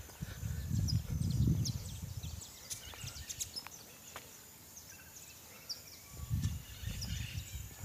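Outdoor ambience: wind buffets the microphone in two low rumbling gusts, one early and one near the end. Between them come faint, short, high bird chirps.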